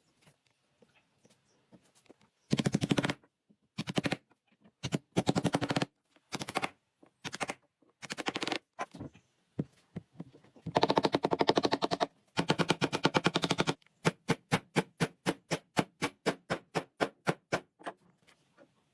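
A power tool run in short bursts, each a rapid mechanical rattle. Near the end comes a steady run of quick separate clicks, about seven a second.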